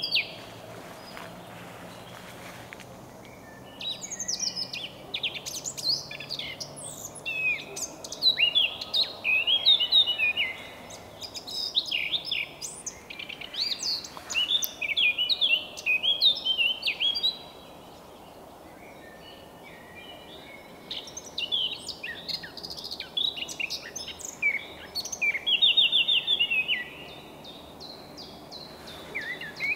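Eurasian blackcap (Sylvia atricapilla) singing: runs of quick, varied warbling phrases, with pauses of a few seconds near the start, in the middle and shortly before the end.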